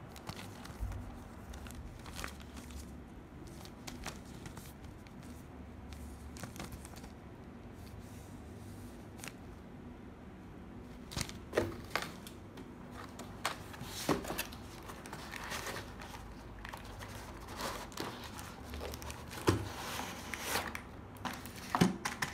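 Clear plastic bags crinkling and a cardboard box being handled and opened: scattered rustles and light knocks, sparse at first and busier in the second half.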